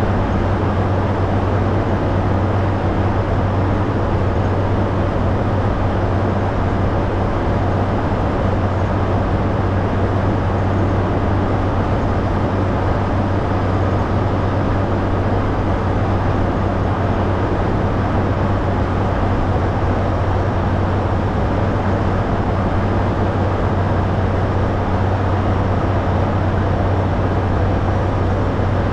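Caterpillar motor grader's diesel engine running at a steady, unchanging speed: a loud constant low drone with no revving or breaks.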